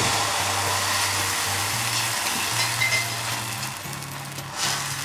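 Dosa batter sizzling as it is poured onto a hot, oiled cast-iron dosa tawa and spread with a steel ladle: a steady hiss that starts suddenly.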